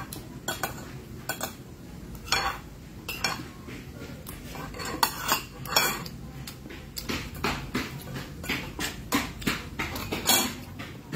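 Irregular clinks and knocks of dishes and utensils on a table during a meal, with louder knocks about two, five to six, and ten seconds in.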